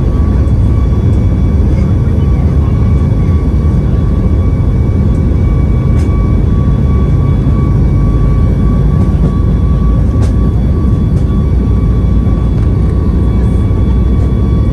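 Cabin noise of a Boeing 737 MAX 8 rolling on the ground, heard from a seat over the wing: its CFM LEAP-1B engine runs with a loud, steady low rumble and a thin, steady whine above it.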